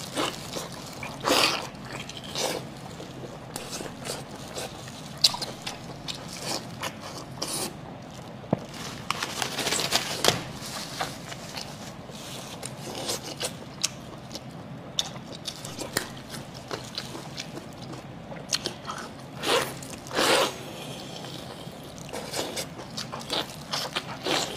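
Close-miked biting and chewing of soft, sauce-covered braised sheep tripe: wet squelching mouth sounds and irregular small clicks, with a few louder wet bursts.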